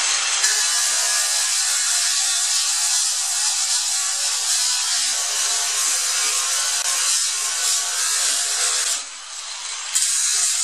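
Small angle grinder with a coarse 24-grit sanding disc on a rubber backing pad, running under load as it grinds down hardened two-component body adhesive on a sheet-metal panel. It runs steadily and loudly, goes briefly quieter about nine seconds in, then comes back to full loudness.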